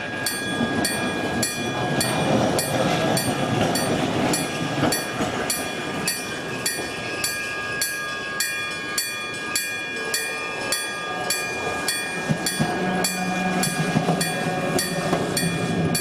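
Japanese railway level-crossing warning bell ringing in a steady 'kan-kan' about twice a second while a train passes, its wheels rumbling and clacking over the rails. A low steady hum joins about three-quarters of the way through.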